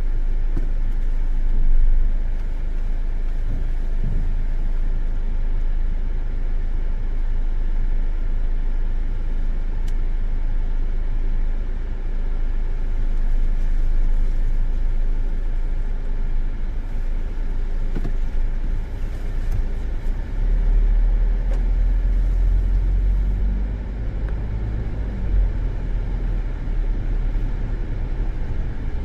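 Steady low rumble of a car heard from inside its cabin, with a few faint knocks; the rumble swells for a few seconds about two-thirds of the way through.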